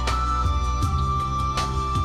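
Slow, calm relaxation music: a steady low drone and held notes, with a struck note ringing out at the start and again about a second and a half later.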